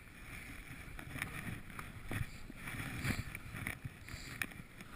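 Skis swishing through deep powder snow, with wind rushing over the camera's microphone and a few short knocks.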